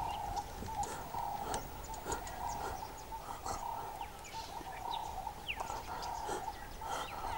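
Bush ambience: a steady droning hum, with birds calling now and then in short falling whistles, and scattered faint clicks.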